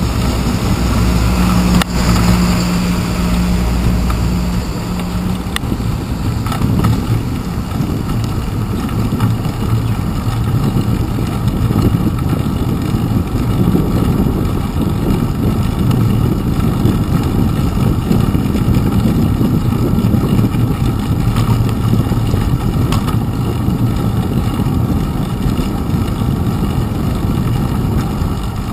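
Steady low rumble of wind and road vibration picked up by a handlebar-mounted GoPro Hero 2 on a bicycle riding over wet pavement, with a steady low hum in the first five seconds.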